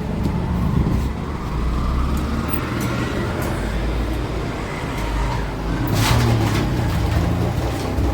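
Royal Enfield Bullet single-cylinder engine running steadily just after an oil and oil-filter change, with a louder burst about six seconds in. Its tik-tik tappet noise is expected to fade as oil reaches the hydraulic tappets.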